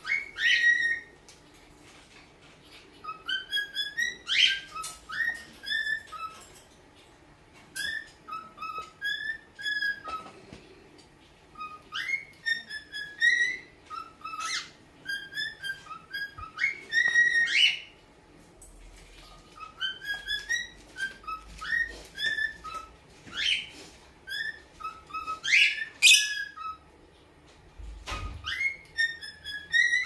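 A cockatiel whistling its song: bouts of warbled, rising and falling whistled notes lasting a few seconds each, repeated with short pauses, with a few sharp clicks in between.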